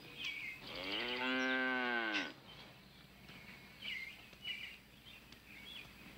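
A cow mooing once: a single long call of about a second and a half, starting about a second in, that rises slightly in pitch and falls away at the end.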